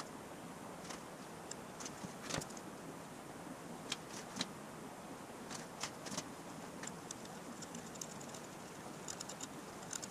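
Scattered faint metallic clicks and light taps as a pointed metal tool is set into and lifted from the holes of a metal plate clamped in a vise, with a quick little run of clicks near the end.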